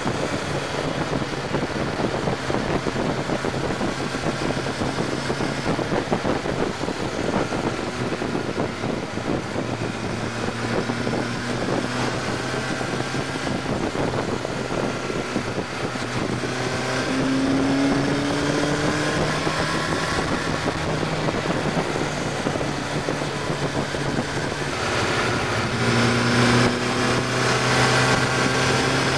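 Motorcycle engine running at road speed, heard from the rider's seat with wind rushing past. The engine note climbs about two-thirds of the way through and gets louder again near the end as the bike accelerates.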